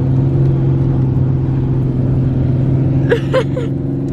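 Truck engine running steadily, a constant low hum heard from inside the cab.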